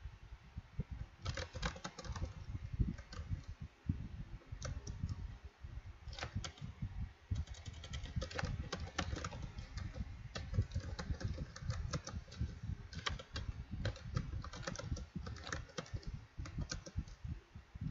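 Typing on a computer keyboard: irregular runs of quick key clicks with short pauses between words, starting about a second in.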